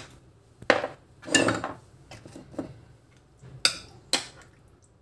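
Metal utensil clinking and scraping against a glass baking dish as chicken pieces are stirred into their marinade: a few short separate knocks, two of them close together near the end.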